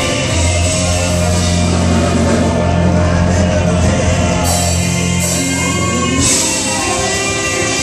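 Southern gospel quartet singing live over a band of drums, keyboard and electric bass. A long held low note cuts off about six seconds in, with a few cymbal crashes just before and as it stops.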